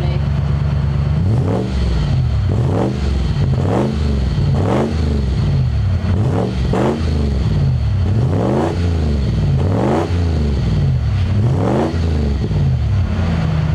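Toyota 1UZ-FE 4.0-litre V8 exhaust through a custom stainless steel rear muffler, idling and then revved in a string of quick blips, each rising and dropping back, about eight in a row, before settling to idle near the end.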